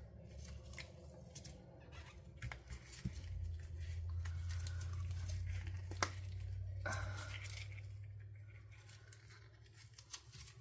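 Silicone mold being flexed and peeled away from a cured resin casting: scattered small clicks and rubbery rustles, over a low steady hum that swells in the middle.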